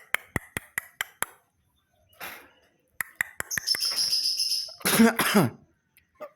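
A run of sharp clicks, about five in the first second and a few more around three seconds in, and a short high whistled note. Then a loud cough, falling in pitch, about five seconds in.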